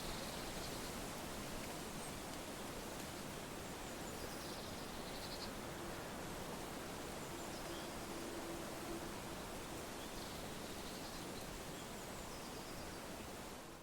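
Wind blowing through autumn leaves: a steady rustling hiss, with a few faint high chirps scattered through it and a faint drawn-out low call around the middle.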